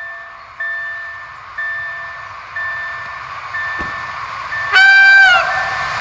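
Level-crossing warning bell ringing about once a second, each stroke fading before the next. About five seconds in, the approaching Koleje Śląskie electric multiple unit sounds a short, loud horn blast, then the train's running noise rises as it nears.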